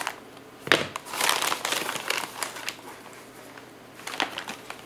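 Paper mailer envelope crinkling as small cardboard boxes are slid out of it, with a sharp rustle about three-quarters of a second in, a longer stretch of crinkling after it, and a brief rustle near the end.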